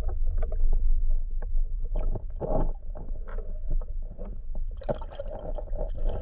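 Underwater sound picked up by a camera while a diver swims through the water: a steady low rumble of water movement with many short, irregular clicks and taps.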